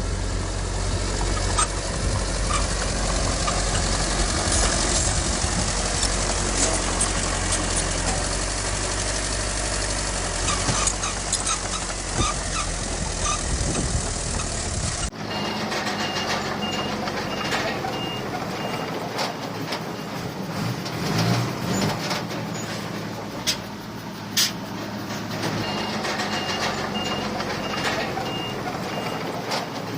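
Heavy diesel earthmoving machinery running with a deep rumble and scattered clanks. About halfway the sound changes to lighter engine noise with a truck's reversing alarm beeping in two spells of a few seconds, as a dump truck backs up to unload.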